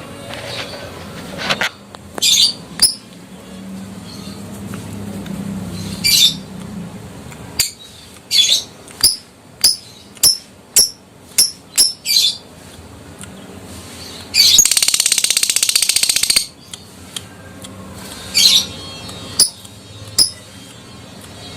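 Adult lovebird calling: sharp high chirps and a string of short calls, then a rapid chattering trill of about two seconds, the 'ngekek' call, about two-thirds of the way through.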